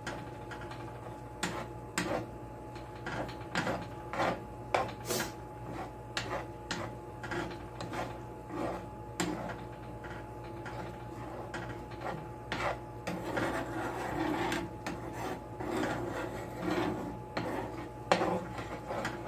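Metal spoon scraping and tapping against a small 8-inch frying pan while stirring thick sausage milk gravy, in irregular strokes over a steady low hum.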